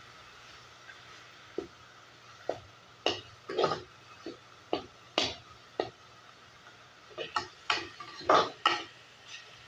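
A spoon stirring ground beef in an aluminium pot, knocking and scraping against the pot's side and bottom in irregular strokes that come thicker toward the end.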